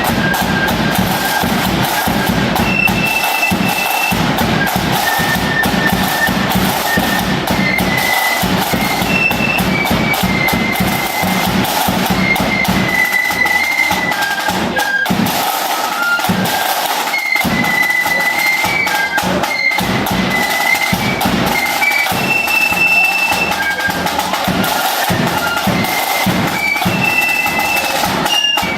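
Flute band playing a tune: a high flute melody over snare and bass drums.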